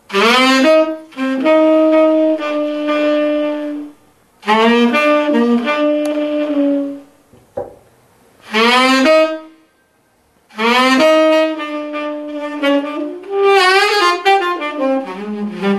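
Saxophone playing slow melodic phrases separated by short pauses, many notes scooped up into from below. A lower line comes in under the melody near the end.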